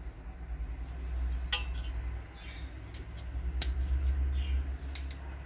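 Garlic cloves being crushed in the kitchen: a few sharp clinks of metal kitchenware, the loudest about a second and a half in, over a low steady rumble of handling.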